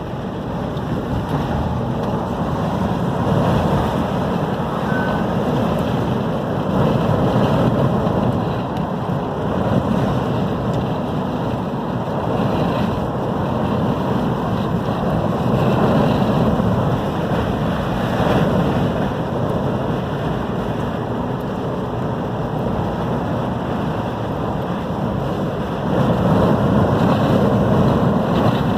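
Strong wind buffeting the microphone over the steady noise of heavy surf, swelling and easing in gusts, with a louder gust near the end.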